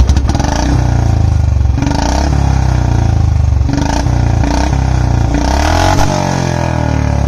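Royal Enfield Bullet 350 single-cylinder engine breathing through a Long Punjab free-flow exhaust with no cat, revved in several short blips from idle. Near the end it drops back to a low-rpm idle.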